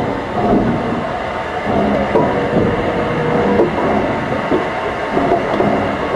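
Baldwin 2-8-0 steam locomotive close by with steam up, giving uneven puffs and hiss, with a steady tone held for about a second and a half in the middle.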